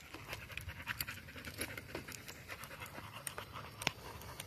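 Pit bulls panting as they walk on leash, with scattered light clicks and one sharper click near the end.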